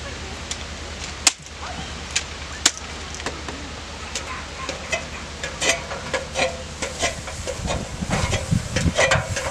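Knocks and scuffs of someone climbing down off a roof: two sharp clacks in the first three seconds, then a run of quicker knocks and scrapes that gets busier and louder near the end, over a steady low hum.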